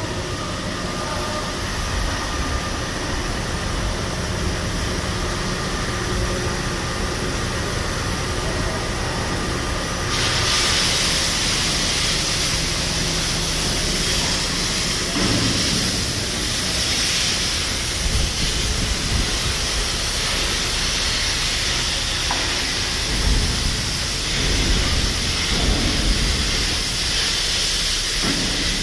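Steady industrial machinery noise in a fabrication shop, a low rumble with hiss; about ten seconds in, a louder high hiss sets in abruptly and continues.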